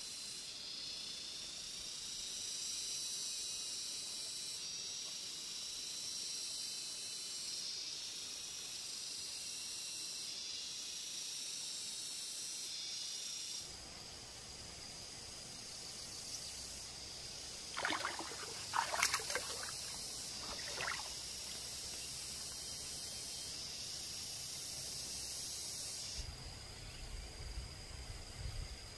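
Steady high-pitched chorus of chirring insects. About 18 to 21 seconds in, a few short scrapes and clicks as soil in a bamboo tube planter is worked with the fingers and a bamboo stick.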